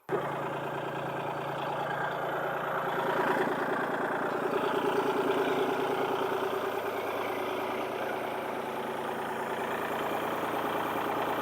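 Large truck engine idling steadily, starting abruptly and rising slightly in level a few seconds in.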